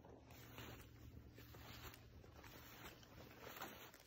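Faint footsteps swishing through tall dry grass and weeds, a soft step about every half second.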